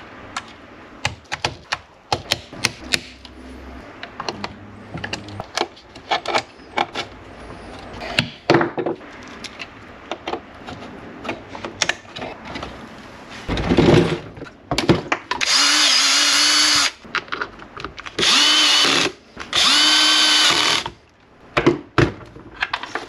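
Small clicks, snaps and rustles of wires, crimp connectors and plastic parts being handled and pushed into place. In the second half a cordless drill runs in three bursts of one to two seconds each, at a steady pitch.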